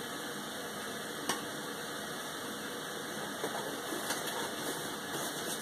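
Steady background hiss, with one sharp click a little over a second in and a few faint ticks later.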